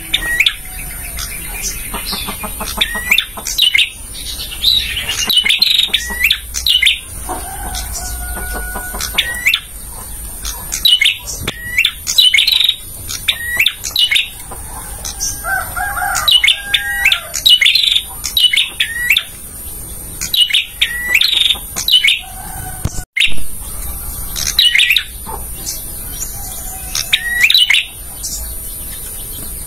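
Male prenjak (prinia) singing: rapid clusters of sharp, high chirps, repeated again and again, with a few lower whistled notes mixed in.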